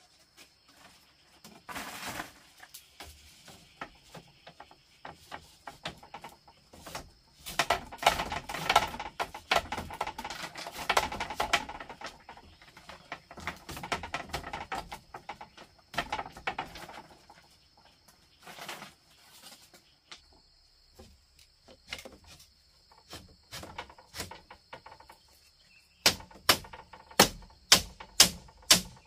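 Hand tools striking and working bamboo: scattered knocks, a busy stretch of rapid chopping and scraping about a third of the way in, then loud, even strikes about two a second near the end. A steady high insect buzz runs underneath.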